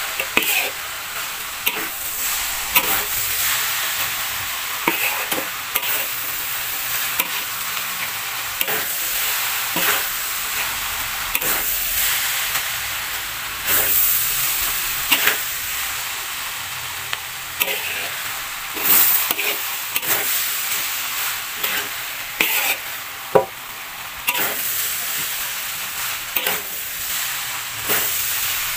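Fried noodles sizzling steadily in a large wok while being tossed and mixed, with a metal spatula repeatedly scraping and knocking against the pan.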